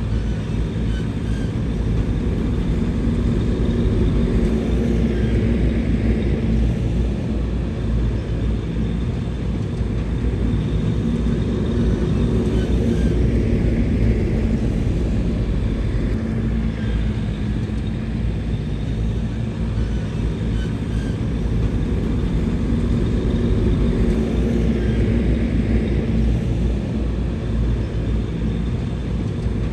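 Bulldozer's diesel engine running steadily under load, a deep continuous drone that swells slightly in loudness every several seconds.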